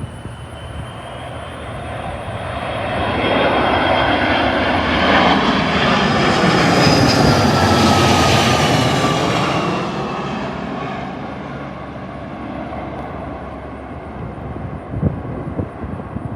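Jet airliner flying low overhead on approach to land: the engine noise builds, peaks about halfway through, then fades, its whine falling in pitch as it passes. Wind buffets the microphone as the jet fades.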